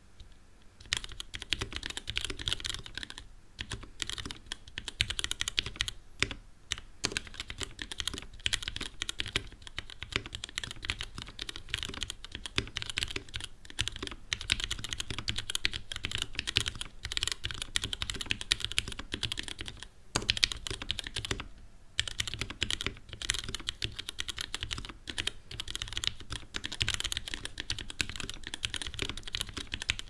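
Fast typing on a 60% mechanical keyboard built from a b.face PCB in an acrylic case, with lubed 55g Gateron Clear linear switches and GMK keycaps. The keystrokes form a dense, uneven run of clicks that starts about a second in, with a few brief pauses.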